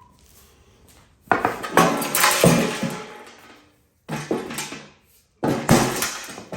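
Metal clattering, banging and scraping as a small steel safe is forced open, in three loud stretches full of sharp knocks.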